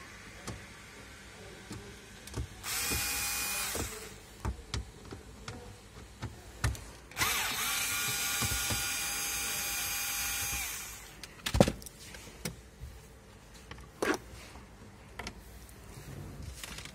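Power drill with a screwdriver bit driving out the glovebox screws of a car dashboard, its motor whining in two runs: a short one, then a longer one of about three and a half seconds. Clicks and knocks of the bit, screws and plastic trim fall in between, the loudest a sharp knock after the second run.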